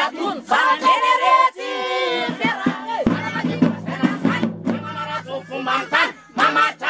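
Malagasy Hira Gasy troupe singing: a lead voice with the group, and lower voices holding a steady note from about three seconds in.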